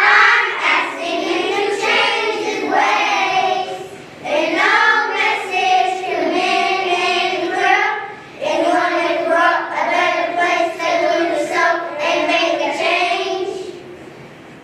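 A group of young children singing together in unison. The singing ends and fades out near the end.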